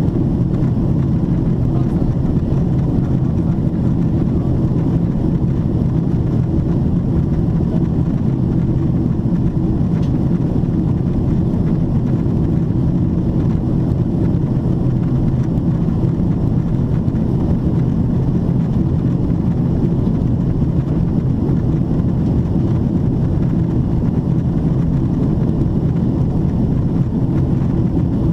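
Steady, low cabin drone of a Boeing 777-300ER airliner descending, the airflow and engine noise heard inside the cabin at a window seat.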